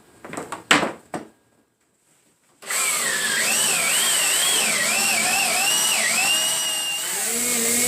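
A few knocks, then an electric drill starts about two and a half seconds in and runs steadily, its whine dipping and rising as the bit loads up, boring holes for running electrical wire.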